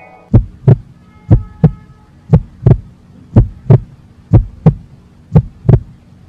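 Heartbeat sound effect: six double thumps, lub-dub, about one a second, over a low steady hum.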